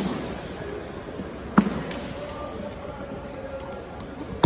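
Kendo bout: a single sharp impact about a second and a half in, against the low murmur of voices in a large hall.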